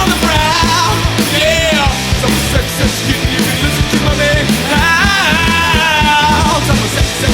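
Punk rock band playing: distorted electric guitars, bass and drums keeping a steady beat. Over it, a high line bends and wavers in pitch, about a second in and again from about five seconds.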